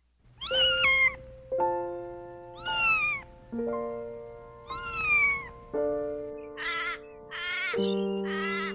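A domestic cat meowing three times, each meow falling in pitch, over background music of held notes. About two-thirds of the way through, a run of quavering bleats begins.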